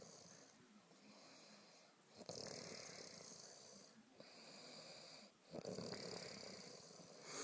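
A sleeping woman snoring: long, drawn-out snoring breaths, each a second or two long, with short gaps between.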